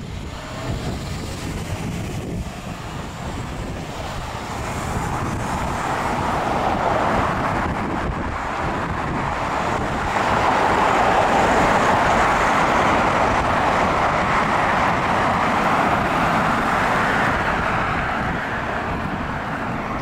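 Car traffic passing through an intersection, mostly tyre noise on concrete pavement. It swells from about four seconds in and is loudest through the second half, with wind buffeting the microphone throughout.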